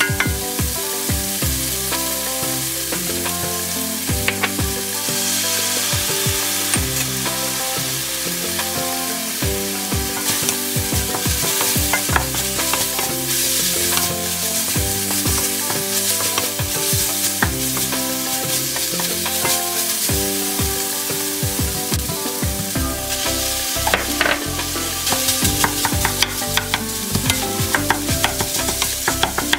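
Chopped kimchi sizzling in a hot frying pan, stirred and scraped around with a wooden spatula in quick, irregular strokes. By the end, cold rice is being stir-fried in with it.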